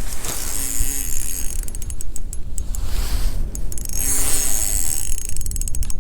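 Fishing reel clicking rapidly in two spells, each with a short whir, while a pike is on the line. A steady low rumble of wind runs underneath.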